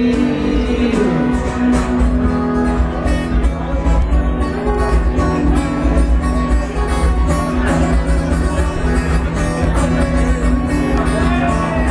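Live band music in an instrumental passage with guitar prominent, the singer's last held note fading out about a second in.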